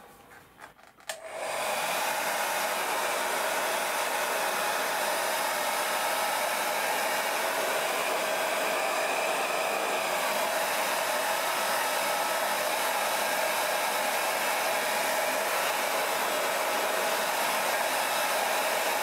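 Handheld hair dryer switched on about a second in, then blowing steadily, used to heat a vinyl decal so it beds down into the curves and recesses of a polycarbonate RC truck body.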